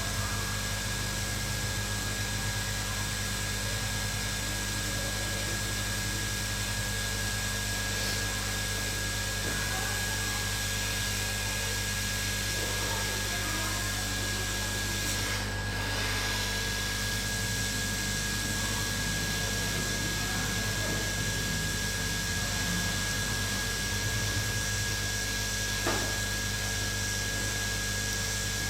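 Hot-air rework station blowing steadily at 250 °C while it melts the solder under an iPhone board's underfill glue, with a thin steady whine over the airflow. There is a single small tick about 26 seconds in.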